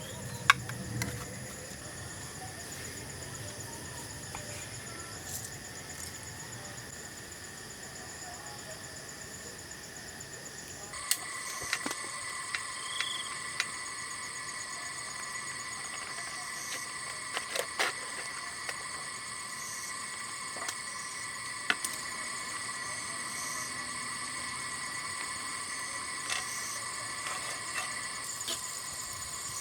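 Steady chorus of insects: several high-pitched droning tones layered together. The chorus jumps louder and changes character about eleven seconds in, with scattered sharp clicks and knocks throughout.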